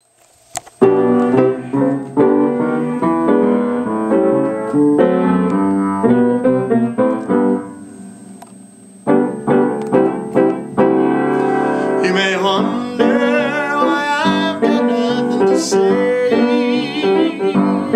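Upright piano played in sustained chords, fading briefly a little before halfway and then resuming. A man's singing voice comes in over the piano about two-thirds of the way through.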